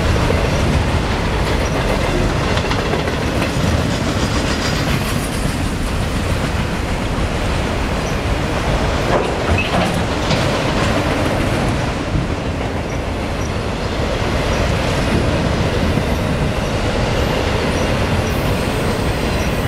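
CN freight train's cars rolling past, steel wheels clacking over the rail joints, with a brief wheel squeal about halfway through.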